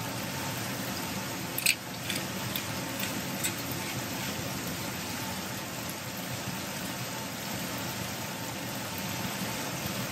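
Ground beef and diced onion sizzling in oil in a nonstick frying pan: a steady hiss with scattered pops and crackles, the sharpest one nearly two seconds in.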